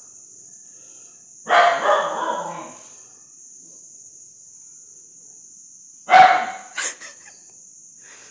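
A kitten crying for food with rough, harsh cries: one about one and a half seconds in, and another about six seconds in with a short cry right after it. Crickets chirp steadily throughout.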